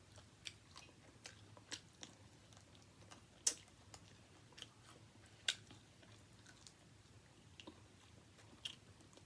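A person chewing food close to the microphone: a string of faint, irregular crunching and smacking clicks, the loudest twice in the middle.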